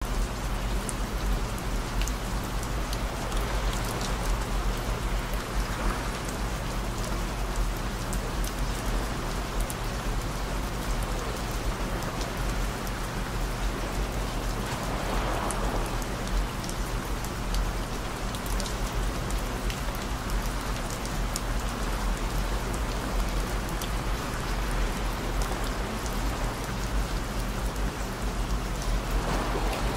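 Steady rain falling, an even hiss with scattered drop ticks. Underneath run low, steady sine-like tones (the video lists 55 Hz, 117 Hz and 221 Hz among its frequencies).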